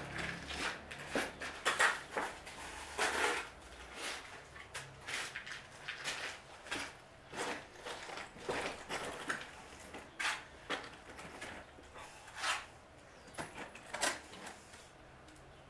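Steel trowel scraping and slapping cement mortar onto a brick wall and scooping it from a mortar board, in short irregular strokes about one a second, dying away near the end.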